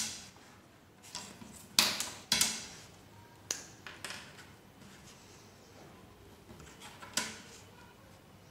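A sheet of paper being folded and creased by hand, with sharp crackles at irregular moments, about seven of them, the loudest near the start and around two seconds in.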